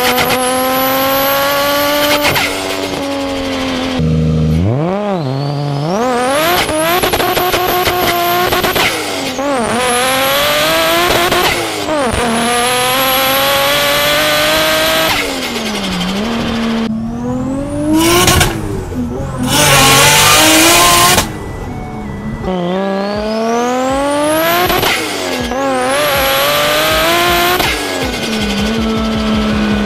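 Nissan Skyline R33's turbocharged RB25DET straight-six revved hard again and again, its pitch climbing steeply and then dropping at each gear change or lift. About two-thirds of the way through there is a loud rushing hiss for under two seconds that cuts off suddenly.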